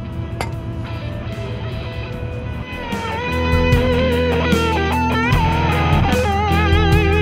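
Background rock music led by electric guitar. About three seconds in it gets louder, and a lead guitar line with wavering, vibrato notes comes in over the bass.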